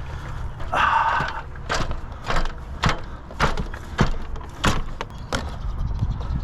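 A series of sharp knocks or taps, roughly two a second, with a brief squeaky scrape about a second in, over a low steady rumble.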